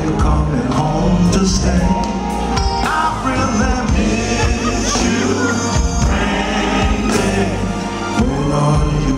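Live R&B band playing through a concert sound system, with a male lead singer's voice over it.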